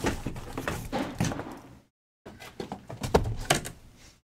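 Cardboard hobby boxes and their case being handled: a run of irregular thunks and knocks. The sound cuts out completely for a moment about two seconds in.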